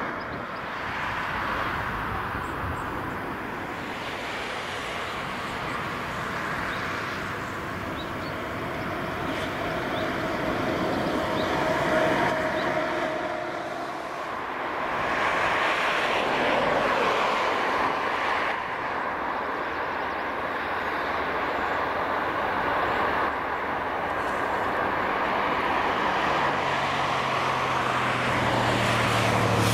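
Steady distant jet aircraft engine rush across an open airfield. A lower engine hum from a ground vehicle comes in near the end.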